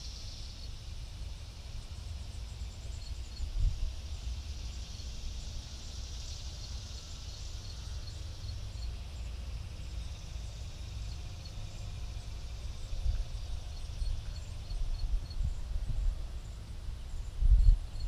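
Wind buffeting the camera's microphone: a low rumble that swells in gusts, with the strongest gust near the end. Faint high-pitched chirps repeat in short runs behind it.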